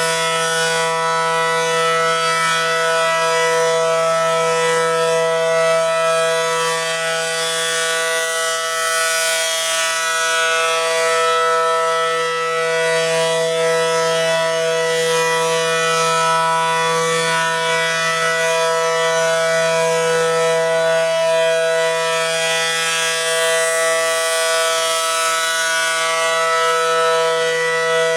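ACA Allertor 125 electronic outdoor warning siren sounding a steady two-note alert tone during a siren test. The tone holds its pitch but swells and fades slightly and slowly in loudness.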